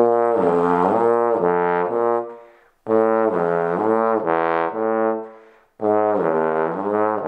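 Trombone played full and smooth at mezzo forte to forte in three short low phrases. In each phrase a note is bent down and back up with the lips. This is a lip-bending exercise that alternates a lip bend with the same note played on the F-attachment valve.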